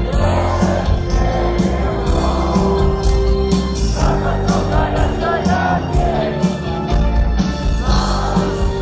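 Live rock band playing with a sung vocal line over steady drums and bass, heard from among the concert crowd.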